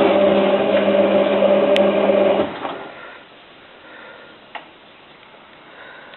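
Hotpoint 9534A washing machine on a 95-degree boil wash, its motor humming steadily and then cutting off suddenly about two and a half seconds in. After that the machine is quiet, with a few faint ticks.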